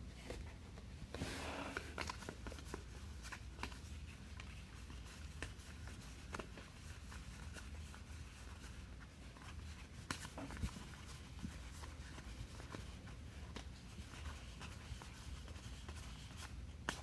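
Faint rustling, crinkling and light clicks of a trading-card box and packs being opened and the cards handled, over a low steady hum.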